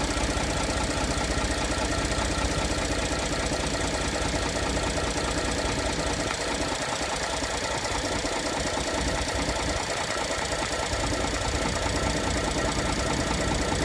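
2014 Ford F-150's 3.5 L EcoBoost twin-turbo V6 idling steadily with a knock, which the owner places where the crankcase meets the transmission.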